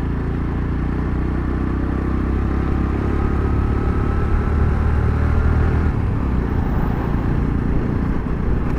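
Motorcycle engine running steadily in low gear, a constant low rumble heard from the rider's seat.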